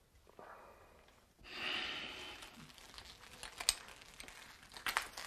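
Quiet rustling of clothing and a few small clicks in the second half, as soldiers handle a general to take away his holstered pistol.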